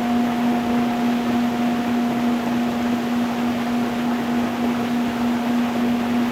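A singing bowl's low tone, held steady with a fainter higher overtone, over the even rush of stream water flowing over stones.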